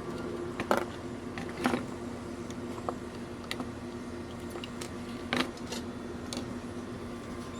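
A few sharp clicks and light taps of tools and small parts being handled on an electronics workbench, three louder ones about a second apart near the start and one more past the middle, over a steady low hum.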